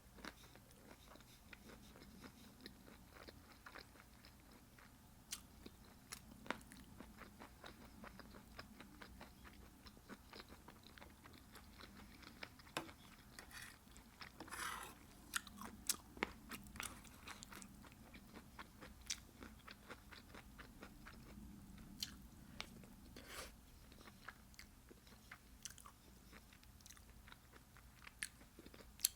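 Quiet close-up chewing and biting of crunchy food, with scattered sharp crunches and a denser run of crunching about halfway through.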